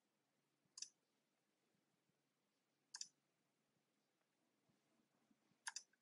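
Three faint, sharp clicks of a computer mouse button, about a second in, around three seconds and near the end, the last a quick double click, over near silence.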